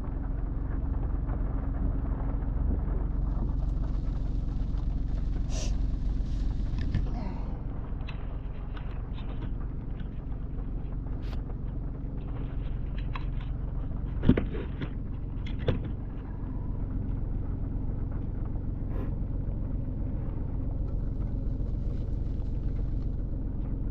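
Wind buffeting the microphone in a steady low rumble during heavy rain, with two short knocks about midway.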